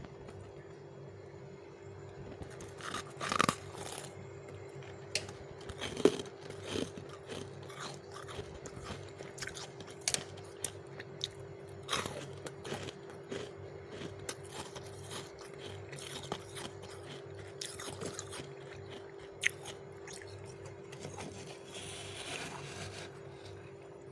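Soft, fluffy freezer frost being bitten and chewed, with a metal spoon scooping through the frost: irregular crunches every second or so, a few of them much louder, over a steady low hum.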